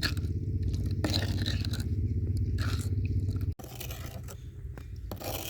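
A spoon scraping around a bowl as it stirs a thick honey mixture smooth so no lumps form, over a steady low hum that cuts out suddenly about three and a half seconds in.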